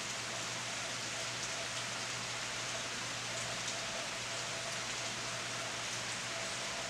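Steady rainfall: an even hiss of drops pattering on leaves and branches.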